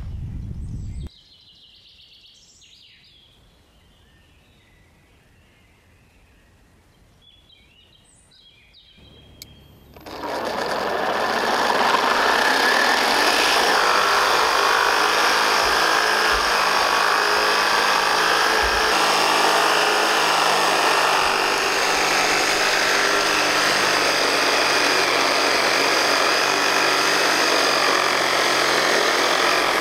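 Faint bird chirps, then about ten seconds in a motor gearbox spinning a 3D-printed two-impeller water jet through a pair of 3D-printed gears starts up and runs steadily: a loud mechanical whirring with a steady whine of meshing gears over a rushing haze.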